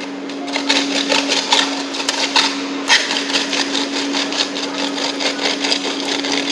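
Flat strike-off plate scraped back and forth in a sawing motion across the rim of a concrete-filled metal unit weight measure, striking off the surplus fresh concrete. The scraping starts about half a second in as quick, repeated strokes, over a steady hum.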